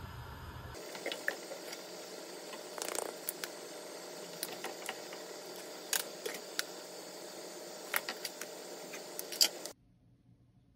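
Pot of beef tteokguk broth simmering on the stove, a steady hiss with irregular small pops and clicks from the bubbling. It cuts off suddenly to near silence near the end.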